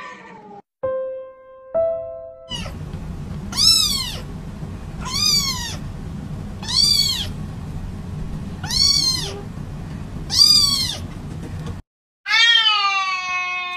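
A kitten meowing five times, short high-pitched mews rising and falling, about one every second and a half over a steady low hum. Briefly before the mews, a few steady electronic tones; near the end, after a short break, a cat gives one long meow falling in pitch.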